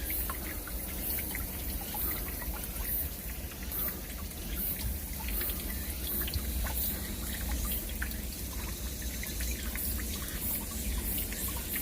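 Water of a mountain stream trickling and splashing over rocks, steady, with many small drips and splashes.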